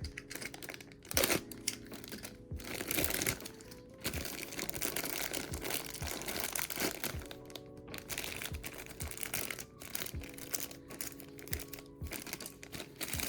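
Plastic blind-box packaging crinkling and rustling in irregular bursts as a collectible figure is unwrapped, over soft background music.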